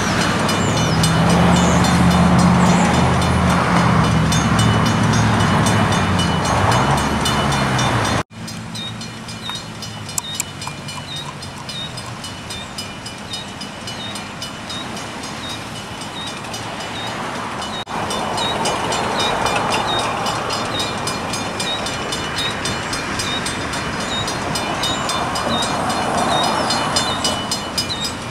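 Railroad grade-crossing warning bell ringing in a steady repeating pattern, with the crossing stuck activated and no train present. Road traffic drives across the tracks, and a vehicle's engine hum is loudest in the first third.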